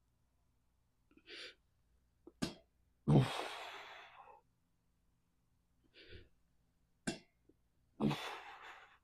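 A man breathing hard through a set of pec deck reps: two forceful exhales of about a second each, about 3 and 8 seconds in, each trailing off, with shorter, softer breaths between them. A sharp click comes shortly before each exhale.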